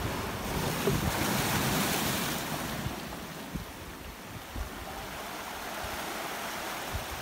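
Sea waves washing and breaking against the boulders of a rocky seawall, swelling loudest about a second in and then easing. Wind buffets the microphone throughout.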